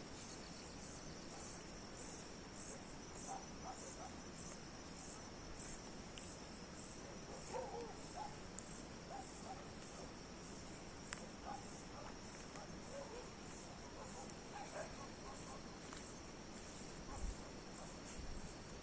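Crickets chirping: a steady high-pitched trill with a second insect's regular chirp about twice a second over it.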